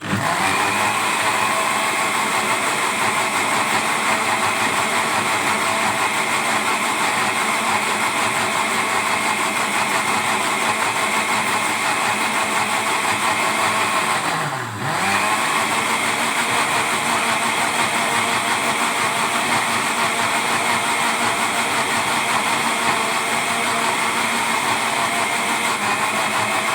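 Electric blender motor starting up and running at full speed, churning grapes with milk and sugar into a shake. About halfway through it briefly slows and then picks back up to speed.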